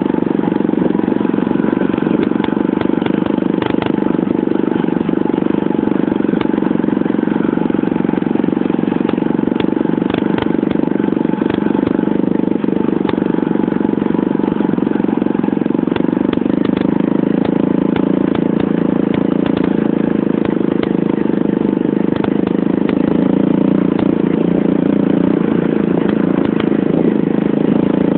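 Race-tuned 125cc pit bike engine running steadily at a cruise, mixed with the small engines of a second pit bike and a 50cc quad riding alongside. The engine note holds even, with no hard revving.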